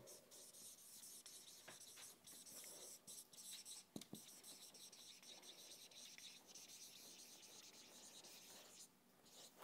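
Faint scratching of a marker writing on a whiteboard, in a run of short strokes.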